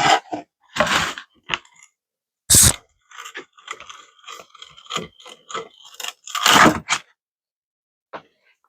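Scraping, creaking and knocking of wooden pieces being worked by hand, in short separate bursts with a cluster of small clicks and scrapes in the middle.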